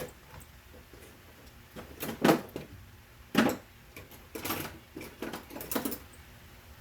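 A handful of short, uneven knocks and clatters of objects being handled, about five in all and spread out, the loudest about two and three seconds in.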